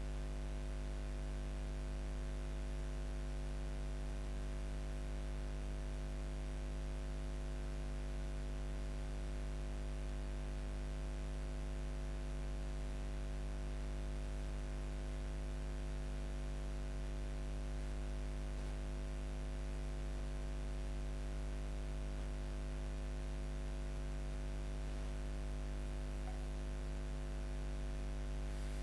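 Steady electrical hum with a stack of fixed tones over a faint even hiss, unchanging throughout.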